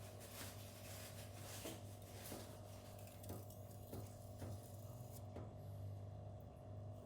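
Knife blade drawn across a 1000-grit silicon carbide whetstone in repeated freehand strokes, a soft, muted scrape about every two-thirds of a second, over a steady low hum.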